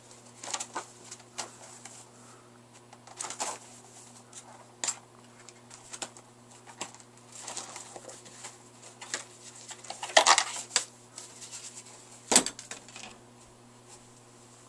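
A small notebook handled and closed by hand: scattered short rustles and taps of paper and cover, louder rustling about ten seconds in and a sharp knock about twelve seconds in, over a low steady hum.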